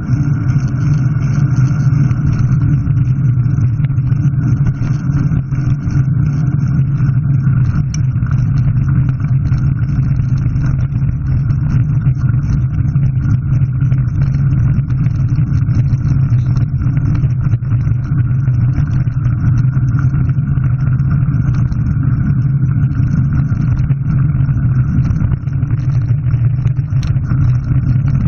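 Steady low rumble of travel along a gravel track, heard on a front-mounted camera, holding even with no rise or fall in pitch.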